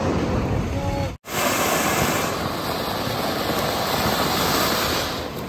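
Street traffic noise for about a second, broken off by a brief dropout; then a ground fountain firework (flower pot) hissing steadily as it sprays sparks, easing off near the end.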